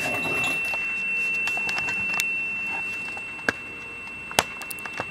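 Kenwood TS-120S receiver giving a steady, high beat-note tone over a light hiss: the weak carrier of a homebrew Arduino AD9850 DDS VFO picked up at 7.025 MHz. A few sharp clicks sound over it, the loudest about four and a half seconds in.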